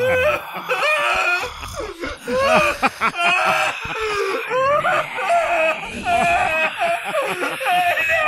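Several high-pitched, wavering cries overlapping, like whimpering and wailing, used in a radio drama as the sound of creatures.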